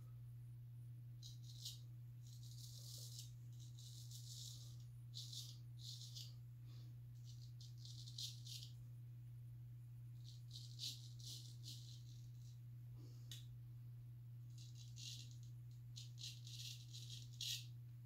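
Razor blade scraping through lathered stubble in runs of short, quick strokes, with pauses between runs, over a steady low hum.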